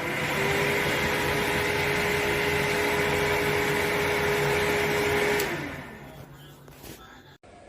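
KONIG exhaust fan with a 2-metre duct running at speed: a steady rush of air with a steady motor hum. About five and a half seconds in it is switched off with a click and winds down, the hum sliding lower as it stops.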